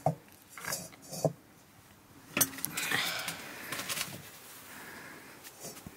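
A few separate knocks and light clinks from a small iron wok being handled on its metal trivet over a wood fire, the sharpest about two and a half seconds in.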